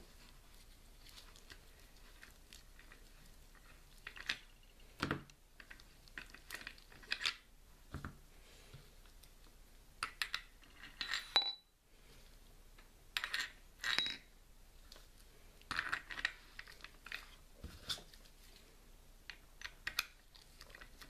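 Metal CO2 capsules clinking and tapping against an Umarex MP 40 BB-gun magazine as they are slid into its gas chamber, with irregular clicks and knocks of the magazine being handled.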